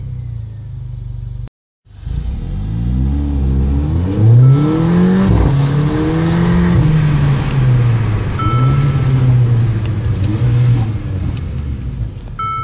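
Mercedes-Benz A45 AMG's 2.0-litre turbocharged four-cylinder heard from inside the cabin. It idles, cuts out briefly, then rises steadily in pitch under hard acceleration from a standstill. The engine holds high revs, dips and climbs again, and eases off near the end.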